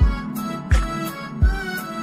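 Background music with a slow, steady beat: a low drum hit about every three-quarters of a second under sustained melodic notes.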